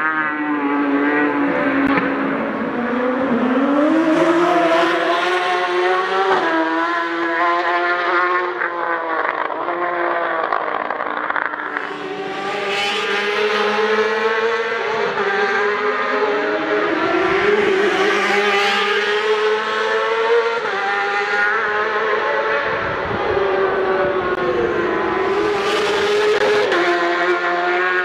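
Race motorcycles accelerating hard past one after another, engines climbing in pitch through the gears and dropping back briefly at each shift.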